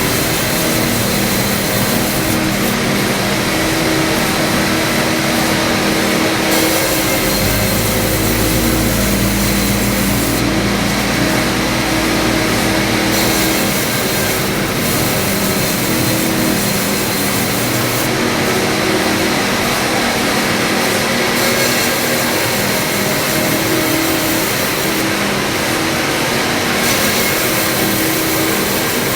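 Wood-processing machine running steadily while sawing Acacia mangium wood into lumber, with a deeper hum joining in for a few seconds about a third of the way through.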